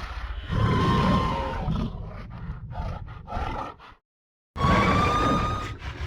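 Creature roar sound effects: a long rough roar with a thin whistling tone in it, a few shorter growls, then a hard cut to dead silence about four seconds in, followed by another roar.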